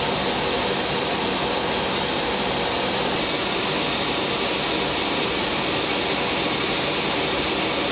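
Engines of a four-engine military transport aircraft running steadily, heard inside the cockpit. It is a constant rush with a steady high whine over it.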